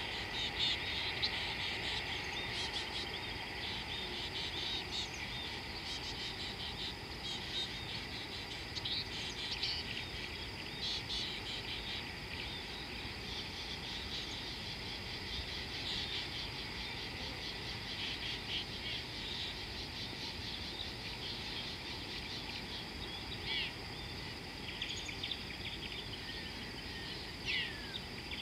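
A steady high-pitched insect drone with scattered short bird chirps over it, and one falling whistled bird note near the end.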